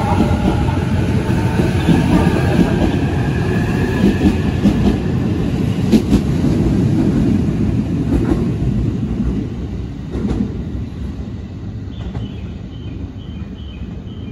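Electric commuter train running past along the platform: a loud rumble with wheel clicks over the rail joints every couple of seconds, fading after about ten seconds as it moves off. Near the end a short high electronic beep repeats a few times a second.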